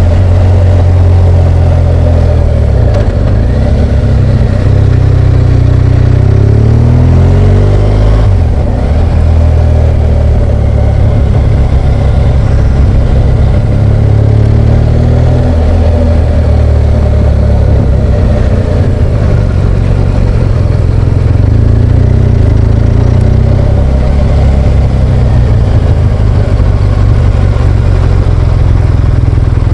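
BMW R1200GS Adventure's boxer twin engine running while riding, the engine note rising and falling several times as the revs change.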